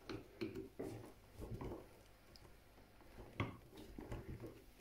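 Faint clicks and light rustling of a hand handling an opened Dell computer power supply's metal case and circuit board, with one sharper click about three and a half seconds in.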